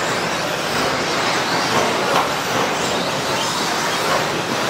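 A pack of 1:10-scale electric stadium trucks racing on a dirt track: a steady hiss of motors whining and tyres on the dirt, with a few brief rising and falling whines as trucks accelerate and pass.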